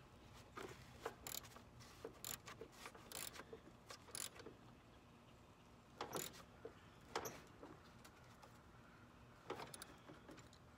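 Faint, irregular metallic clicks and short scrapes of a wrench working a bolt tight on a riding lawn mower.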